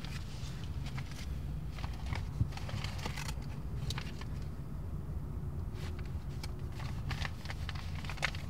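Paper rustling and crinkling in short irregular bursts as a bundle of cash wrapped in white paper is unwrapped and handled, over a low steady hum.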